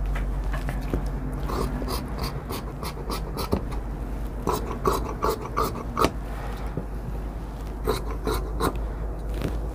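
Tailoring scissors cutting through shirt fabric: a run of quick snips several times a second from about a second and a half in to about six seconds, then a few more near the end.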